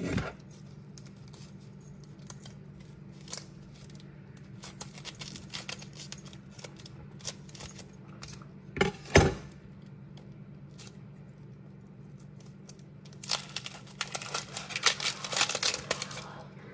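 Dry onion skin being peeled off by hand: crackling and tearing, loudest in a dense stretch during the last few seconds. About nine seconds in, a knife knocks twice on a wooden cutting board, with scattered small clicks of knife and onion before.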